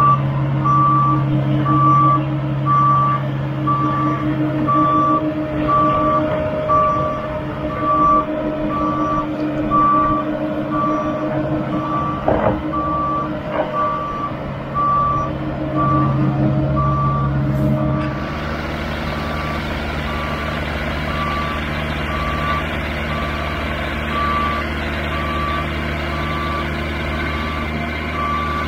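Backup alarm on a bucket loader beeping steadily, about once a second, over the machine's running engine as it handles a heavy log.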